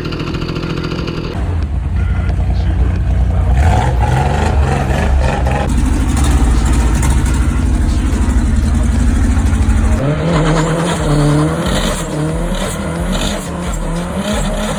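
Car engine running with a heavy low rumble, then revving up and down in its second half.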